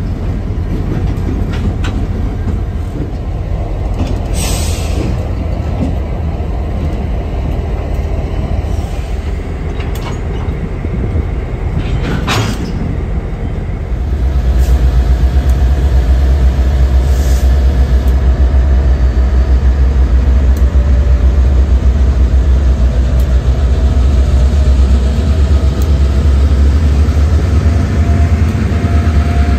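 Diesel locomotives running as they move slowly through a rail yard, with a short hiss about four seconds in and a sharp knock about twelve seconds in. About fourteen seconds in, a locomotive comes up close and its low engine rumble grows much louder and stays loud.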